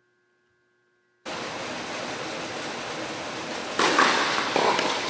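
A steady rushing hiss of room noise that starts abruptly a little over a second in and turns louder near the end.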